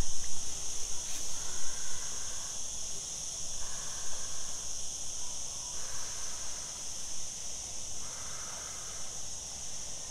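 Breaths blown in puffs into the valve of a Quechua self-inflating camping mattress, about one every two seconds, filling it by mouth. A steady high drone of insects runs underneath.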